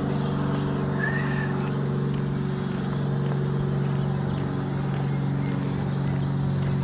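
A machine running with a steady low hum that does not change. A brief high chirp comes about a second in.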